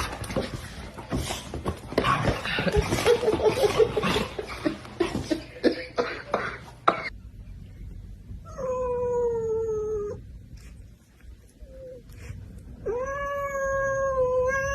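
A cat yowling: two long drawn-out calls, the first sliding slightly down in pitch and the second held steady. Before them comes a stretch of rustling and knocking that stops abruptly.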